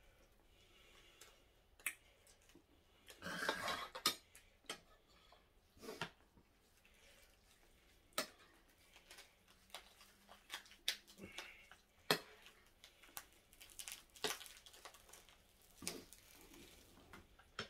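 Chopsticks and a metal spoon clicking and scraping against plates as food is picked up and eaten: scattered sharp clicks every second or two, with a longer noisy scrape about three seconds in.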